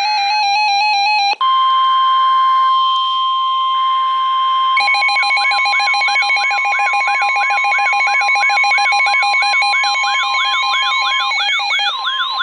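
Several NOAA weather radios sounding their alerts. A fast stepped electronic tone pattern cuts off about a second and a half in. It gives way to the steady 1050 Hz weather-radio warning alarm tone, which is joined a few seconds later by rapid beeping and a repeating wailing warble from the other radios.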